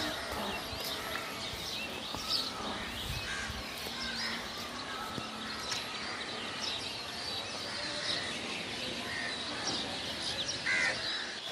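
Outdoor birdsong: several birds calling, with many short chirps and whistles scattered throughout over a steady background of outdoor noise.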